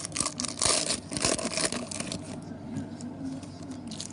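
A trading card pack wrapper being torn open and crinkled: several rough ripping rasps in the first two seconds, then quieter handling.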